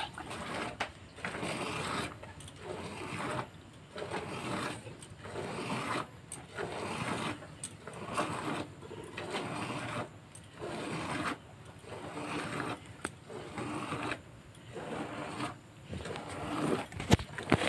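Hand milking: squirts of milk from the cow's teats hitting the foamy milk in a plastic bucket, coming as rhythmic swishes about once a second. A sharp click near the end.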